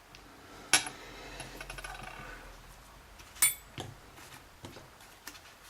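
Small metal lock parts set down on a hard surface while a pin-tumbler lock is being taken apart: two sharp metallic clinks, the first ringing on for over a second, with a few lighter clicks between.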